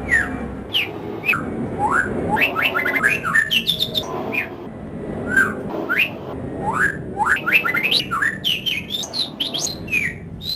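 Songbird singing a rapid, varied run of short whistled notes that sweep up and down, many in quick succession with brief gaps.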